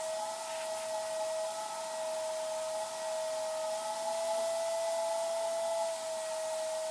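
Paint spray gun spraying primer: a steady whine from its air supply over a continuous hiss of air.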